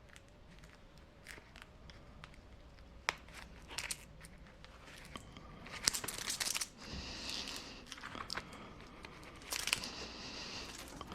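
Insulated copper wire being fed slowly through a Stripmaster wire stripper, the blade slitting and peeling the insulation. Scattered clicks throughout, with two louder noisy stretches about six and nine and a half seconds in.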